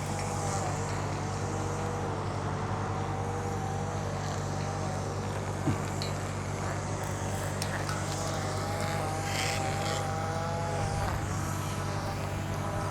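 The lift's engine running steadily, with a higher wavering whine over it twice, and a single click about halfway through.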